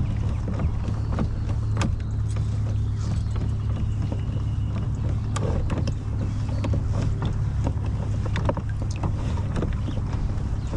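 A steady low rumble on a kayak, with scattered light knocks and clicks from gear being handled on the hull.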